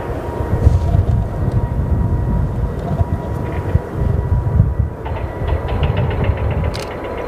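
Airbus A380's four Rolls-Royce Trent 900 jet engines running: a deep, uneven rumble with a steady high whine over it.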